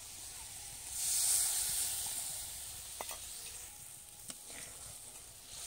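Hot oil and frying spices in a kadai sizzling hard as a bowl of liquid is poured in; the hiss surges about a second in, then slowly dies down as the liquid bubbles. A few light clicks sound partway through.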